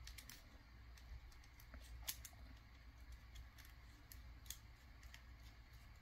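Faint, scattered small clicks and ticks of a small screwdriver tightening the screw terminals on a waterproof gland connector's terminal insert, the clearest about two seconds in and again near four and a half seconds.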